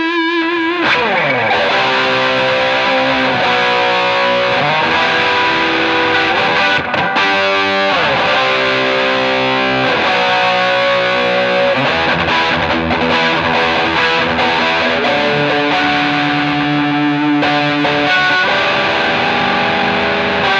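Overdriven electric guitar: a Gibson SG with Kloppmann pickups through a Ryra Klon overdrive pedal into a crunchy 1969 Marshall JMP 50 and a Greenback 12-inch speaker, playing distorted held chords with several quick slides down the neck.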